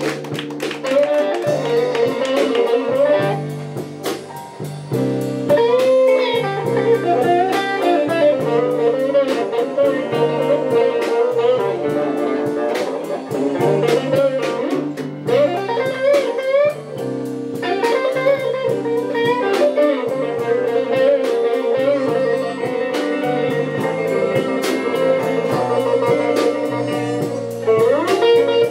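Live blues played on electric guitars, bass guitar and drums, with no singing: a lead electric guitar plays bent, sliding notes over a steady bass line and cymbal beats.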